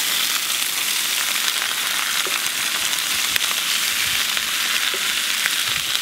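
Diced onions and bell peppers sizzling in hot oil in a cast-iron skillet, just dumped in: a steady frying hiss with scattered small pops.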